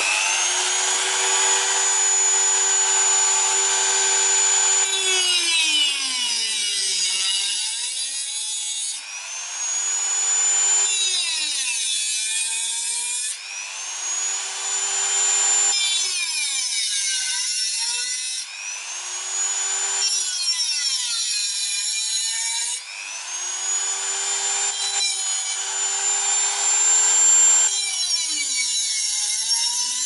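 A Dremel rotary tool with a 409 abrasive cut-off wheel is cutting rusty metal. It runs as a high, steady whine over a gritty grinding hiss. The pitch sags each time the wheel is pressed into the cut and climbs back as it is eased off, five or six times over.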